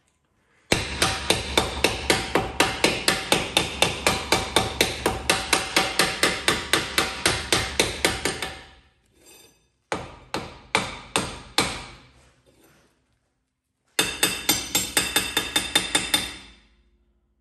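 Hammer tapping lightly and rapidly, about five blows a second, on the seized rear brake drum of a 2009 Volkswagen Polo 9N to free it from the hub. The blows come in three runs, a long one and then two shorter ones after brief pauses, and each blow rings.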